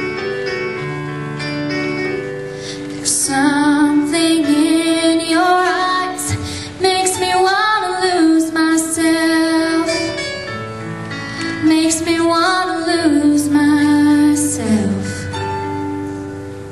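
A young female singer sings a slow ballad into a microphone over instrumental accompaniment. The voice comes in about three seconds in, after a few held accompaniment chords.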